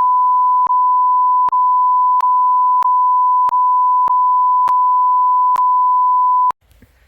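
Steady high-pitched censor bleep, one unbroken tone laid over speech with faint clicks at several edit points, cutting off abruptly near the end.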